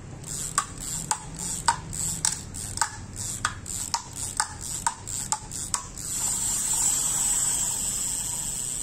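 Fishing reel being worked by hand: sharp mechanical clicks about twice a second, then a steady high hiss from about six seconds in.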